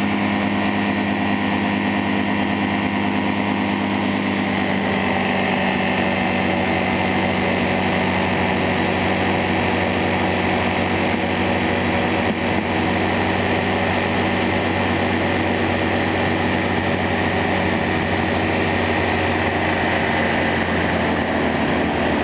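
Motorized hang glider's engine and propeller running steadily at about 4800 rpm in level flight, with an even, unchanging pitch.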